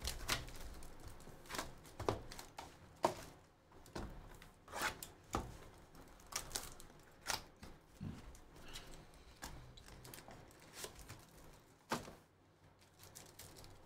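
Plastic shrink wrap torn and crinkled off a trading card box, then the cardboard box opened and the wrapped card packs handled: faint, irregular rustles and taps.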